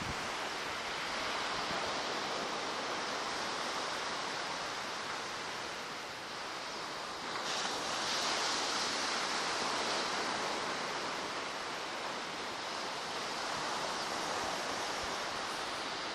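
Ocean surf: waves breaking and washing up the shore in a steady rushing hiss, swelling brighter about seven and a half seconds in.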